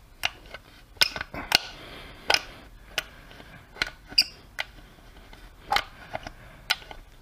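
Scattered metal clicks and knocks from the kick-start parts of a Kymco Agility 50cc four-stroke scooter being worked back and forth by hand. The kick mechanism is stiff and does not turn freely.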